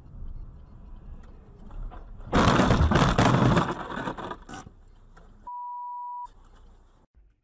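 A car being driven, then a loud crash with snow and debris pelting the windscreen, lasting about a second and a half before it dies away. About three seconds later comes a short steady beep of under a second, then the sound cuts off.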